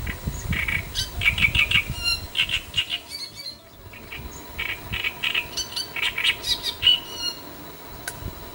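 Great reed warbler singing: fast runs of repeated short notes in two bursts, with a pause of about a second midway.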